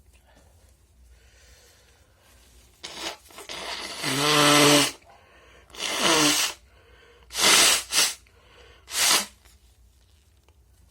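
A person sneezing wetly. Quick catching breaths lead into a series of loud sneezes a second or two apart. The first sneeze is the longest and is voiced.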